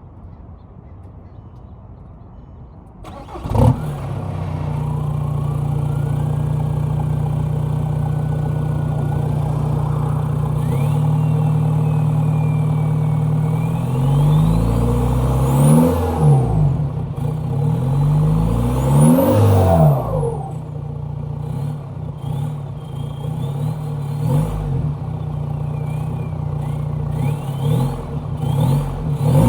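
Straight-piped 2003 Volkswagen Jetta TDI's 1.9-litre four-cylinder turbodiesel starting about four seconds in and idling, then revved up twice and blipped a few more times. The turbocharger whistles over the engine, its pitch climbing as it spools up with the revs and falling away as they drop.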